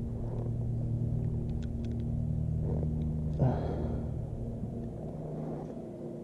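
Steady low drone of an engine running, made of several even tones, easing off near the end. A short rustle of handling about three and a half seconds in, and a few faint ticks.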